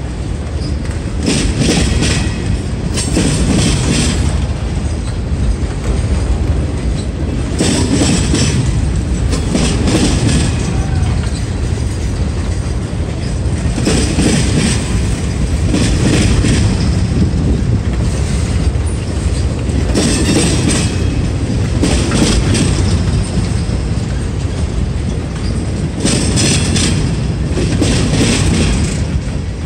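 Freight train of boxcars rolling past close by: a steady low rumble of wheels on rail, broken by pairs of louder clickety-clack bursts about every six seconds as the wheel trucks at each car joint pass.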